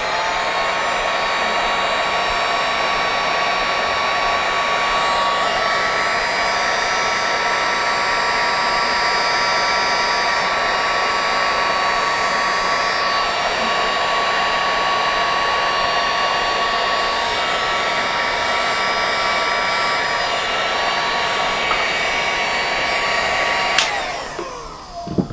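Handheld electric hot-air blower starting up, running steadily with a fan whine for over twenty seconds, then switched off near the end, its pitch falling as it winds down.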